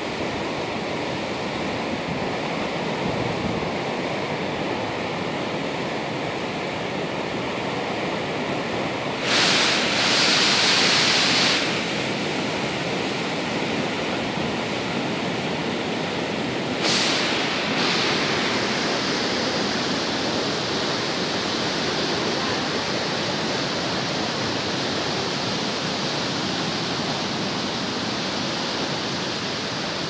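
Waterfall rushing, a steady wide hiss of falling water, with a louder surge of hiss about a third of the way in and another brief one a little past halfway.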